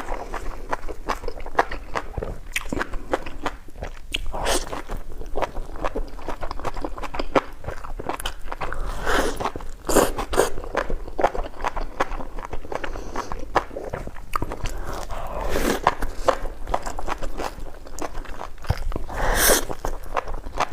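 A person chewing and biting food close to the microphone: many irregular short clicks, with a few louder bites about halfway through and near the end.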